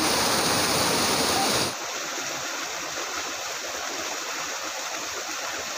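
River water rushing, a steady noise that drops suddenly to a softer rush about two seconds in.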